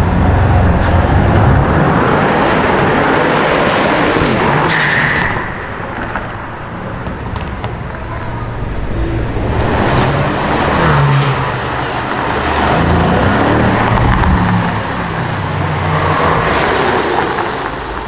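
Audi RS6 engine and exhaust running loud under acceleration. The sound dips about five seconds in, then swells again several times.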